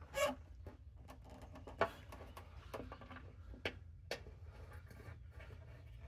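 Faint, irregular clicks and light knocks from a socket ratchet and the motorcycle's rear fender being handled and worked into place, over a low steady hum.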